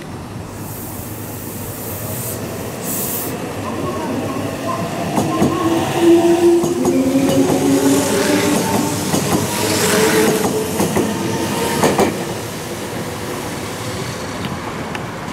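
Meitetsu 2000 series μSKY electric train running past the platform, building up as it approaches and easing off as it goes. Its wheels rumble and click over the rail joints, with a sharp crack about twelve seconds in. A whining hum rises through the middle of the pass.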